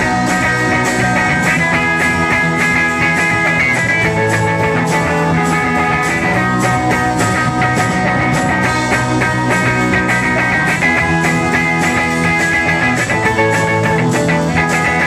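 Rock band playing live and loud: electric guitar, electric bass and drum kit together, with a steady, regular drumbeat.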